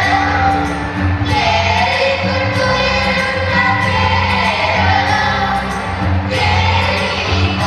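A song: singing voices over music with a steady beat.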